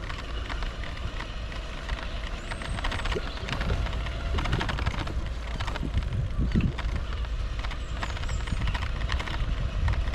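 Bicycle riding over a rough, patched path surface: a steady low tyre rumble and wind noise, with frequent small rattles and clicks from the bike.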